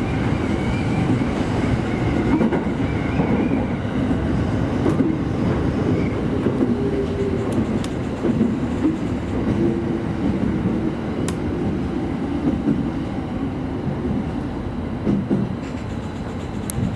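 JR Sobu Line local electric train pulling into a station platform, heard from inside the front car: a steady rumble of wheels on the rails with a few sharp clicks over the rail joints.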